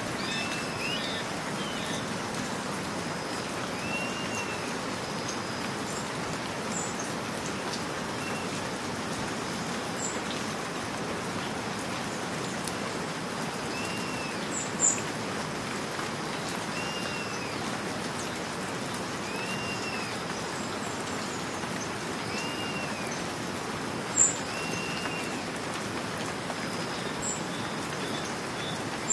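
Steady rain falling in woodland, pattering evenly, with a bird repeating a short arched chirp every few seconds. Two sharp, louder drips stand out, about halfway through and again near the end.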